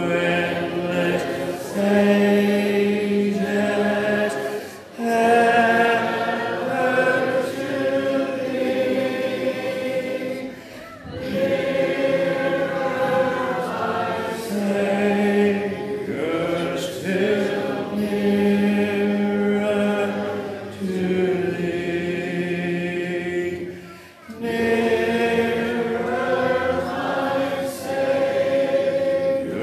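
A hymn sung a cappella by a congregation, with the song leader's voice close on the microphone, in long held notes. The lines are separated by short breaks for breath.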